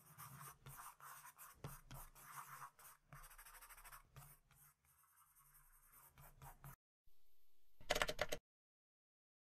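Faint scratching and rustling, broken into many short strokes, stopping about seven seconds in. A brief louder burst follows near the end and cuts off abruptly into silence.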